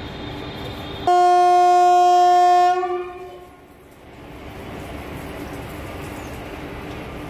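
Indian Railways electric locomotive horn sounded once, a single steady blast of about a second and a half starting about a second in and then dying away, over the steady rumble of the passing light engines.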